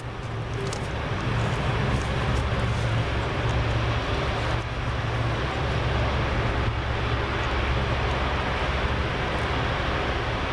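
Jet airliner's engines running, a steady low rumble with an even rushing noise over it that holds without change.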